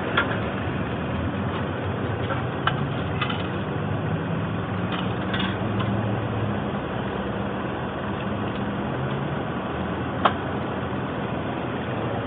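Steady engine hum, like a motor idling, with a few short sharp clicks or knocks over it, the loudest near the end.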